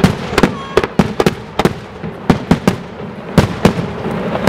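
Professional aerial fireworks display: shells and mines bursting in quick, irregular bangs, more than a dozen in a few seconds, over a continuous rumble.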